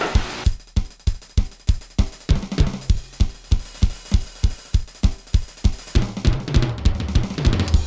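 Soundtrack music: a drum kit playing a fast, steady beat of about four strokes a second, with bass drum, snare and cymbals. A low bass part joins about six seconds in.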